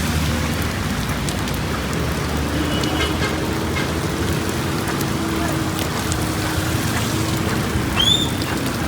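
Steady rain falling on the street, with the low hum of traffic engines beneath it. A brief high squeak sounds about eight seconds in.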